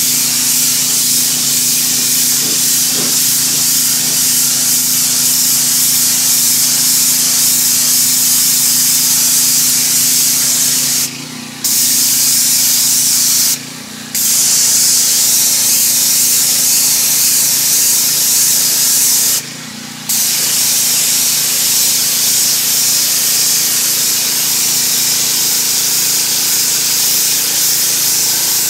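Pressure washer jet spraying onto concrete: a loud, steady hiss with a steady low hum underneath. The spray cuts out briefly three times, a little before halfway, again about two seconds later, and once more about two-thirds of the way through.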